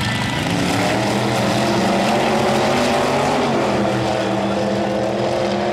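Two drag-race cars launching side by side and accelerating hard down the strip, their engines climbing in pitch, then dropping back about three seconds in and holding.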